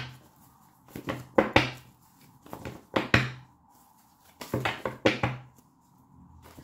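A deck of tarot cards being shuffled by hand: short shuffling noises in clusters of three or four with brief pauses between them, over a faint steady hum.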